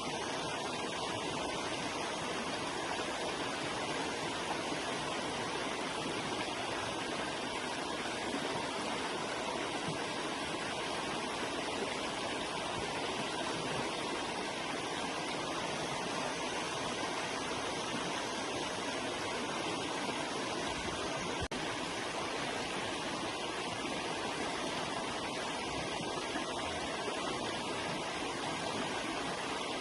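Forest river flowing over rocks: a steady, even rush of water.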